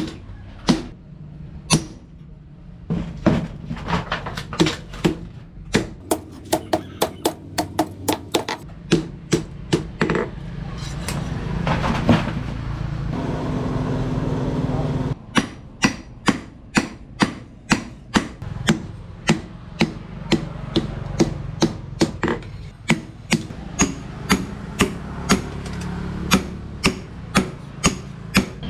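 Hand hammer striking hot leaf-spring steel on an anvil in a steady rhythm of about two ringing blows a second, forging the blade. The hammering stops for a few seconds in the middle, where a steady rushing noise rises instead.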